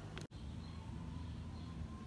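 Faint background noise with a low rumble, broken by a sudden brief dropout about a quarter second in.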